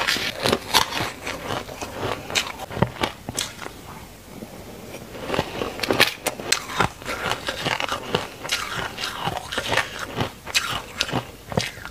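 Frozen ice being crunched and chewed close to the mouth, along with a metal spoon scraping and breaking up crumbly frozen ice in a steel bowl. It is a dense run of sharp, irregular crackling crunches that thins out briefly about four seconds in.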